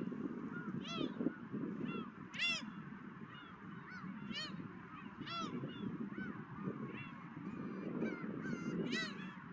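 Gulls calling: a string of short, arched cries, several birds, with the loudest near the start, the middle and the end. Under them a steady low rush of wind.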